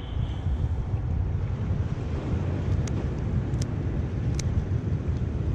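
Wind buffeting the microphone over the wash of water against the rocks, with a few sharp little ticks about three to four and a half seconds in.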